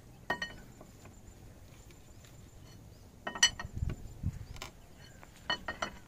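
Metallic clinks of a steel handle working in a hydraulic bottle jack under a tractor's rear axle, coming in three short clusters with a couple of low thuds in the middle.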